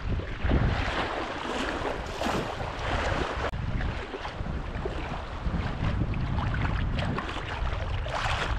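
Wind buffeting the microphone over the wash and slosh of shallow surf water, a steady rumbling noise with no distinct events.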